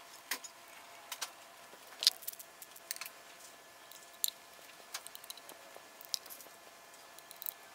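Scattered light metal clicks and taps of a hand tool and a valve cover being fitted and its bolts tightened on an LS3 V8 engine, the loudest about two seconds in and just past four seconds, over a faint steady hum.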